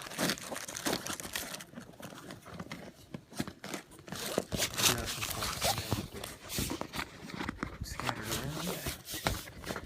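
Hands rummaging through the contents of a bagpipe case pocket: irregular rustling and crinkling with small knocks and clicks as items are handled.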